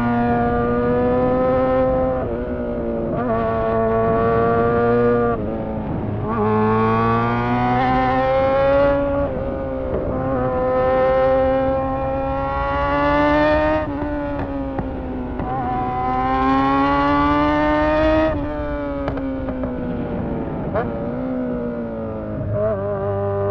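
Honda CBR600 inline-four engine running with no exhaust fitted, throttled up and rolled off repeatedly. Its pitch climbs for a few seconds and then drops sharply, about five times over, with a couple of sharp cracks near the end.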